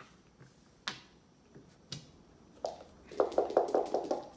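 A few sharp clicks of backgammon checkers being set down on the board, then, about three seconds in, a second of quick rattling as precision dice are shaken in a felt-lined dice cup.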